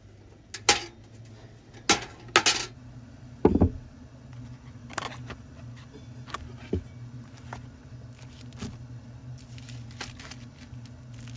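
Knocks and clatters of cooking gear being handled and set down: a cooler lid, a cast-iron skillet and food packages on a wooden table. Four loud knocks in the first few seconds are followed by softer, scattered clacks, over a steady low hum.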